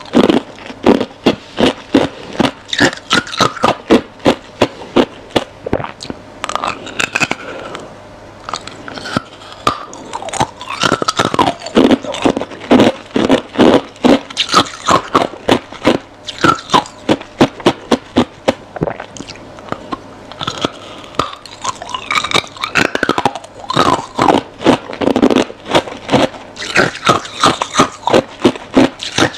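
Freezer frost ice being bitten and chewed close to the microphone: a dense run of crisp, repeated crunches.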